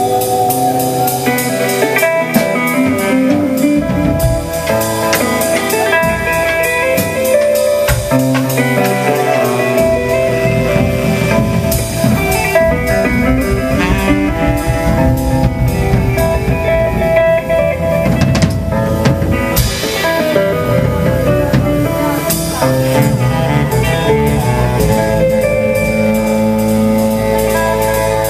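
Live jazz-funk band playing: saxophone, hollow-body electric guitar and a Mapex drum kit together, with no pause. The bottom end fills out about a third of the way through.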